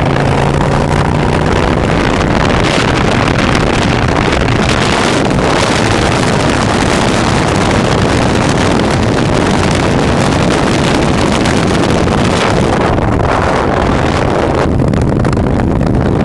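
Motorcycle engine running at road speed under heavy wind noise on the microphone. The engine's steady hum is plainest in the first second and a half, then the wind noise covers most of it, and the hiss eases somewhat in the last few seconds.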